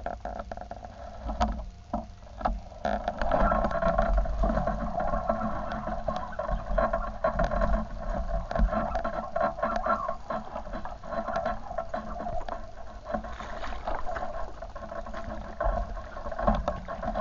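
A small stream's water running and splashing steadily, louder from about three seconds in, with scattered light knocks and clicks close to the microphone.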